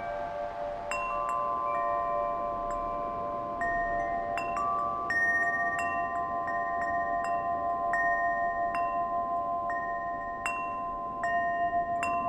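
Wind chimes ringing at irregular intervals, their struck tones ringing on and overlapping, over a soft steady rushing noise.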